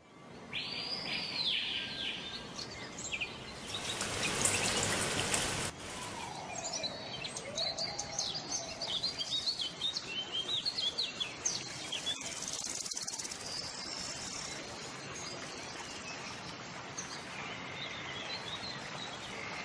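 Birds chirping and whistling, many short calls, over a steady background hiss. About four seconds in, a louder hiss comes in for a couple of seconds and then cuts off suddenly.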